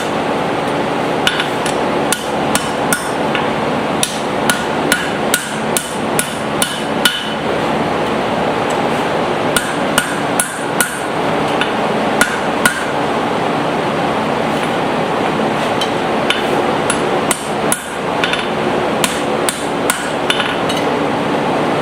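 Blacksmith's hand hammer striking hot steel in runs of about two blows a second, with short pauses, over a steady background hum.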